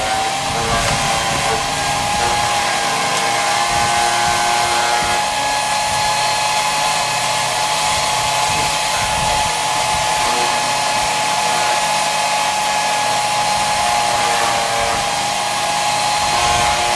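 14-amp electric chipper shredder running with a steady high whine, its pitch rising slightly at the start as the motor picks up speed. Irregular low knocks and crackles run underneath as limbs are fed through and chipped.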